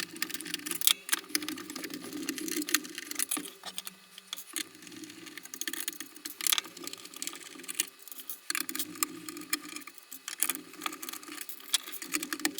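Electric screwdriver running in spells of a few seconds, backing screws out of the espresso machine's bottom plate, with brief pauses between screws and light clicks and rattles of screws and plastic.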